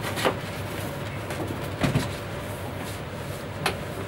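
Large cardboard boxes being handled: a few knocks and rubs of cardboard, with a dull thud about two seconds in and a sharper knock near the end.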